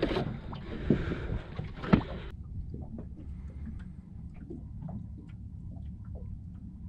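Water lapping against the hull of a small boat: a steady low rumble with light scattered ticks. For the first two seconds a louder hiss with a couple of knocks sits over it, then drops away suddenly.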